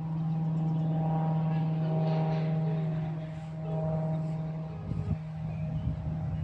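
An engine running steadily with a constant low hum, and a few low bumps on the microphone near the end.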